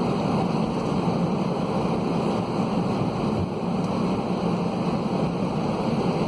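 Steady cabin noise of an Airbus A320-211 taxiing, its CFM56 jet engines running at idle thrust: an even rumble with no changes.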